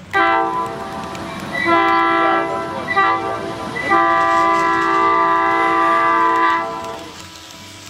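Multi-chime diesel locomotive horn sounding the grade-crossing signal: two long blasts, a short one, then a final long one.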